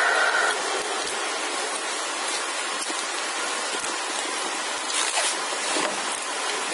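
Steady hiss of background noise, with a few faint crackles of the beaded stem and floral tape being handled about five seconds in.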